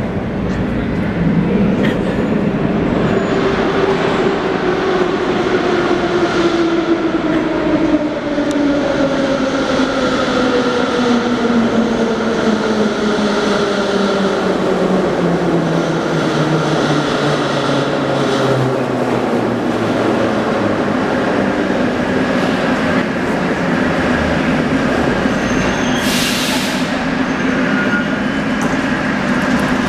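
An 81-717.5 metro train pulling into the station. Its motors whine over the rumble of the wheels, the pitch falling steadily as it slows. Near the end there is a brief hiss as it comes to a stop.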